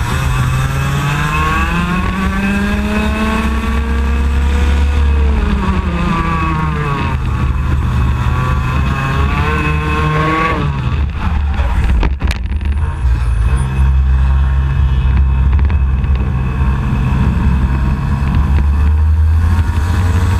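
IAME X30 125cc two-stroke kart engine at racing speed, its pitch climbing as the kart accelerates, dipping, climbing again, then falling away about ten seconds in as the throttle comes off. A sharp knock about twelve seconds in, over a steady low wind rumble on the onboard microphone.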